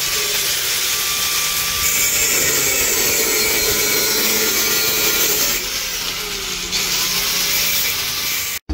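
A power tool working wood, a loud steady rasping hiss that shifts in pitch a few times and stops abruptly near the end.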